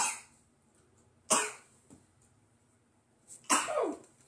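A person's voice: three short, harsh bursts, the first at the very start, one about a second in, and a longer one near the end that falls in pitch.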